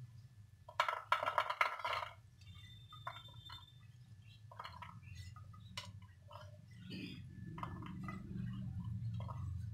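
Cooked beans, peas and paneer tipped from a non-stick frying pan onto a plate and pushed out with a spatula. There is a clattering rattle about a second in, then scattered soft clicks and scrapes, all over a steady low hum.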